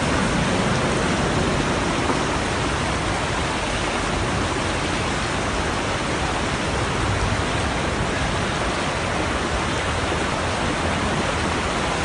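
Strong flash-flood torrent rushing steadily past, a continuous even rush of water.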